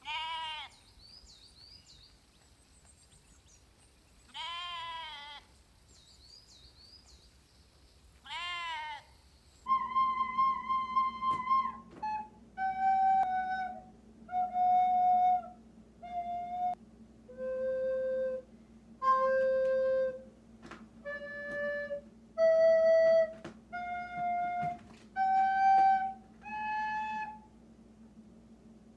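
Sheep bleating three times, each call wavering in pitch, then a recorder playing a slow tune of single held notes, stepping up and down in pitch.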